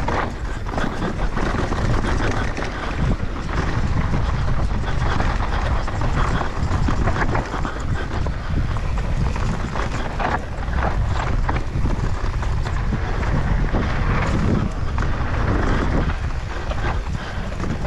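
Mountain bike riding down a rough trail at speed: wind rumbling on the action-camera microphone, with tyre noise and frequent rattling knocks from the bike.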